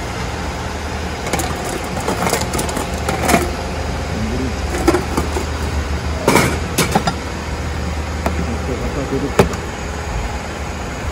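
Street background: a steady low hum with a few sharp knocks and clatters scattered through it, and faint voices.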